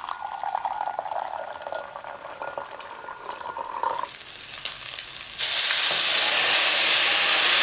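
Hot water is poured into a glass measuring cup, with a pitch that slowly rises as the cup fills. About five seconds in, the water is poured into a hot pan of browned ground meat and a loud, steady sizzling hiss starts.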